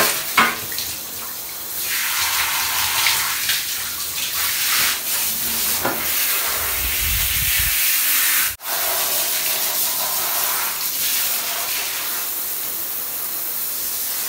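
Handheld shower head spraying water onto a small dog's coat and the bathtub, a steady hiss and splash, with a brief low rumble about seven seconds in and a momentary dropout shortly after.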